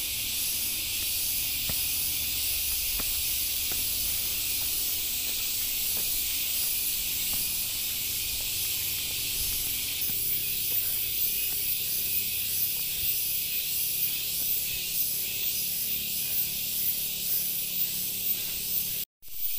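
Dense, steady chorus of tropical forest insects, most of all cicadas, heard as a loud high hiss with a fine pulsing texture. The sound cuts out for a moment near the end.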